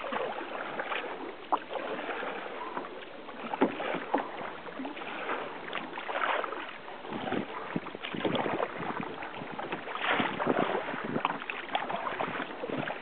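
Water splashing and slapping against a kayak's hull as it moves through open-sea chop, in irregular surges every second or so with a couple of sharper slaps.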